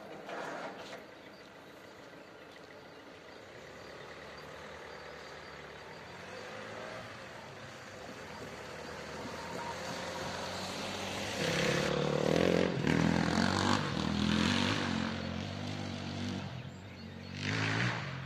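Road vehicles driving over the level crossing: a van's engine and tyres come closer and pass loudest about twelve seconds in, with a bus following over the rails. Another short rush of vehicle noise comes near the end.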